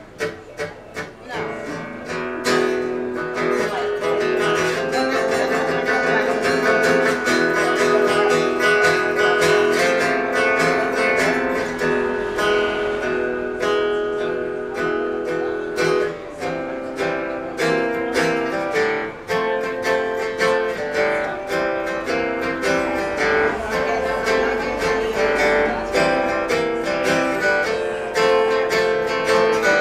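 Acoustic guitar music: a few separate plucked notes, then steady strummed playing from about two seconds in.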